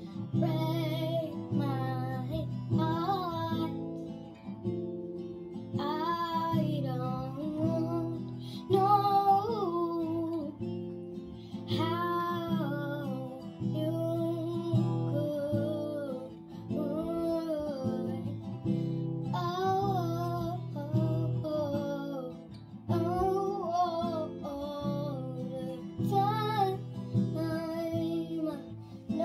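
A young girl singing a melody in phrases, accompanied by an acoustic guitar.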